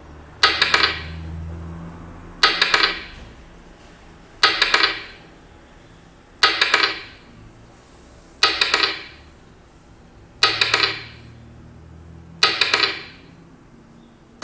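A slide-show animation sound effect played through computer speakers, seven times about two seconds apart, once for each bullet point that appears on the slide. Each is a quick cluster of sharp clicks that dies away in about half a second.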